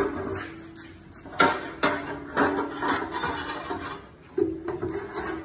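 Metal track-setter bars and mounts clanking against each other as they are handled and fitted to a trail groomer: a sharp knock at the start, then several more knocks, each with a short metallic ring.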